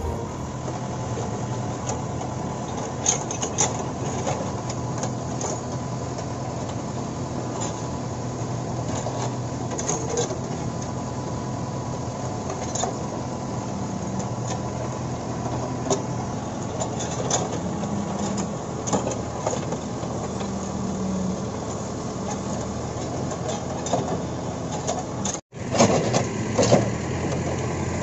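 Case 580L backhoe loader's diesel engine running steadily under the work of the backhoe arm digging, with scattered short clanks and knocks from the digging.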